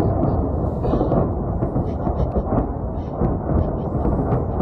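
Heavy bombardment: a continuous deep rumble of distant explosions running together, with scattered sharp cracks.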